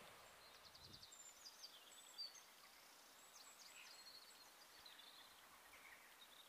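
Faint birdsong from small birds: scattered high chirps and short trills over a very quiet outdoor background.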